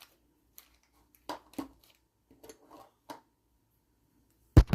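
Handling of small metal sizing pieces and a brass pen tube: a scatter of light clicks and taps, then one sharp knock near the end.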